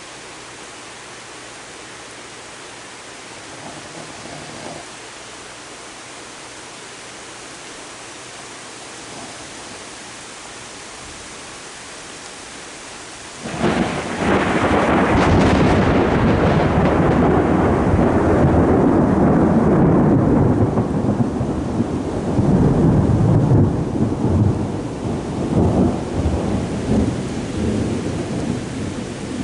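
A steady hiss, then about thirteen seconds in a sudden loud, unpitched rumbling noise that rolls and fluctuates without dying away.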